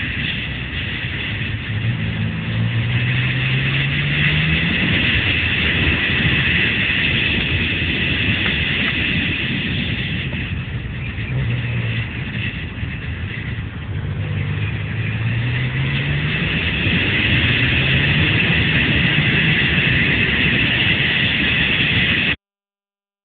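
A vehicle engine accelerating at speed, its pitch climbing steadily twice, over a constant rush of wind noise. The sound cuts off abruptly near the end.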